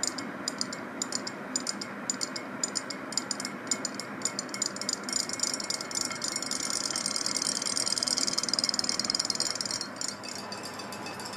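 Small battery-powered toy fish swimming in a glass bowl of water, their motors giving a rapid buzzing rattle. The rattle turns steadier and louder from about six seconds in and drops back near the end.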